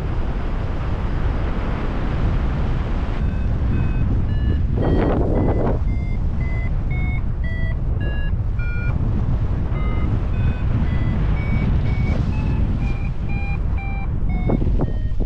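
Paragliding variometer beeping, about two short electronic tones a second, their pitch shifting from beep to beep as the glider climbs, starting about three seconds in. Heavy wind noise on the microphone runs underneath, with a brief louder gust or rustle about five seconds in.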